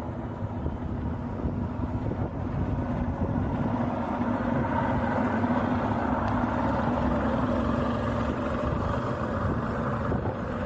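Motorboat engine running steadily as the boat passes, a drone that builds and is loudest in the middle.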